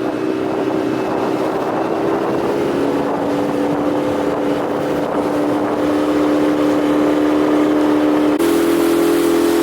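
A small motorboat's engine running steadily under way, with hiss from the water and wind. Its pitch shifts slightly about three seconds in, and near the end the hiss suddenly gets louder and the engine tone changes.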